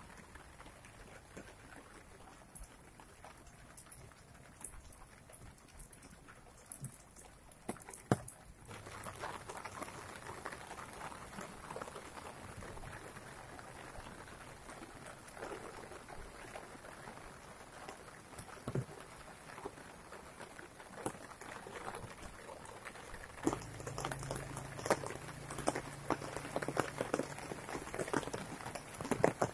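Rain falling on leaves and wet ground, with scattered single drops ticking. It gets louder about eight seconds in. Near the end a low steady hum joins in.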